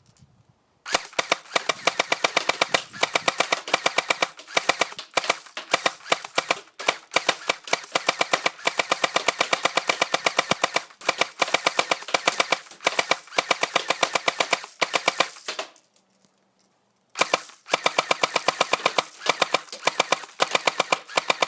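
AEG (electric) airsoft rifle firing on full auto: a long, rapid, even rattle of shots that starts about a second in, breaks off for about a second near 16 s, then starts again.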